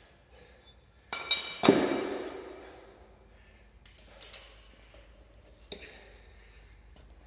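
Weight plates clanking on a steel barbell sleeve as the load is changed: two loud ringing clanks a little over a second in, then lighter metal clinks around four seconds and one more near six.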